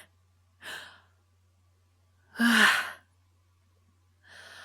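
A man sighing and breathing out, acted in a voice drama: a short breath, a louder voiced 'haa' about two and a half seconds in, and a longer, softer exhale near the end. It sounds like catching his breath at the top of a climb.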